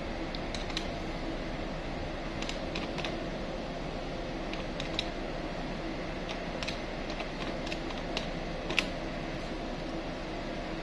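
Keys of a desk calculator being pressed, a series of irregular light clicks with the loudest about nine seconds in, over a steady background hum.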